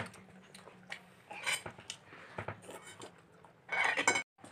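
Cutlery clinking and scraping against dishes during a meal: a few scattered short clinks, with a louder noisy patch near the end.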